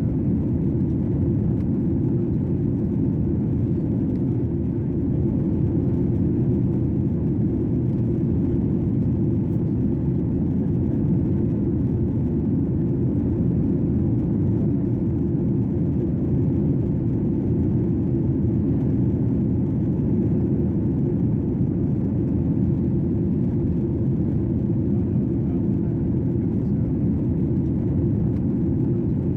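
Airliner cabin noise in flight: a steady, deep rumble of engines and airflow, heard from inside the cabin.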